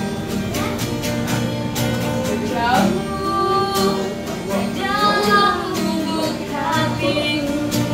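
A woman singing live over a steadily strummed acoustic guitar, holding a long wavering note about five seconds in.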